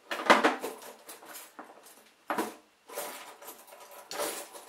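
Handling and rummaging noises: small hard objects clattering and rustling, with an irregular series of sharp knocks, the loudest about a third of a second in.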